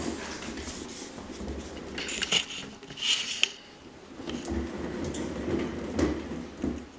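A One Fast Cat exercise wheel turning as a cat runs on it: an uneven rolling rumble, with a stretch of clattering about two to three and a half seconds in.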